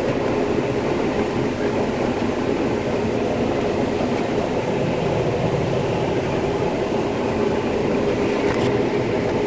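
Combine harvester running steadily while harvesting corn, heard from inside the cab: an even mechanical drone with a constant low hum.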